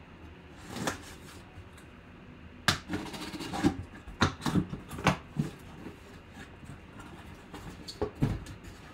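Cardboard box being handled and opened by hand: a string of short scrapes and knocks, busiest from about three to five and a half seconds in and again near the end.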